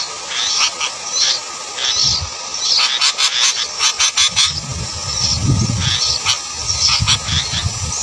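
Sooty-headed bulbul nestlings begging at the nest, a rapid run of short, high-pitched cheeps as the adult arrives to feed them. A cluster of sharp clicks comes about three to four seconds in, and a low rumble runs under the second half.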